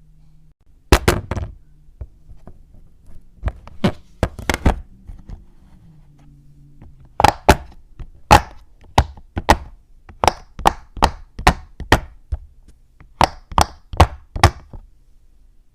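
Sharp clacks of a hard fidget toy being snapped and clicked: a few scattered ones at first, then a run of about two a second.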